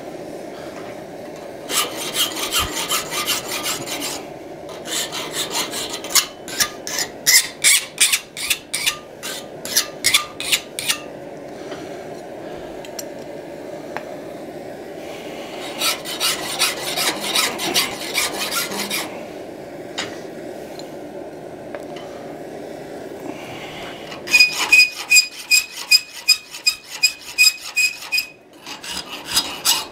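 Hand file stroking along the edges of a forged steel hinge strap in four bouts of quick, even strokes with pauses between. In the last bout the steel rings with a clear tone under the file.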